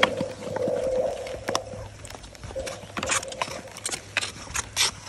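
Skate blades gliding over clear lake ice with a wavering hum for the first two seconds, then again briefly about three seconds in. Over this come sharp clicks and taps of ski-pole tips and blades striking the ice.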